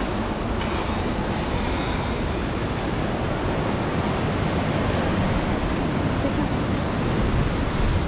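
Steady rushing of a mountain stream, an even wash of water noise with no pauses.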